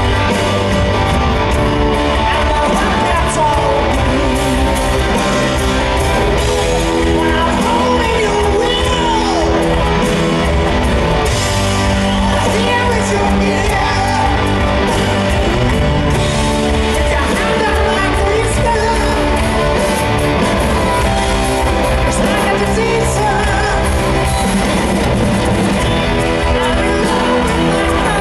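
A rock band playing live in an arena, heard from the audience: drums, bass and electric guitar, with lead singing and some shouts from the crowd.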